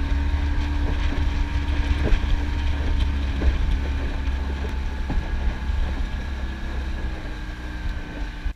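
A small skiff's motor running steadily at speed, with heavy wind buffeting the microphone and a few faint knocks, easing a little quieter toward the end.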